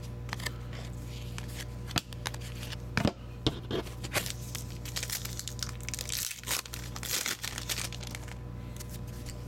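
Foil trading-card pack wrapper crinkling and tearing open, with a few sharp clicks and taps from handling, over a steady hum.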